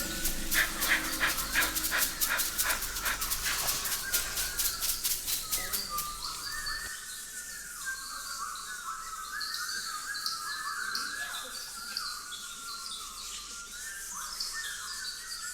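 Foley sound effects: a fast run of sharp clicks, about five a second, fading away over the first six seconds, then a steady twittering of short birdlike chirps.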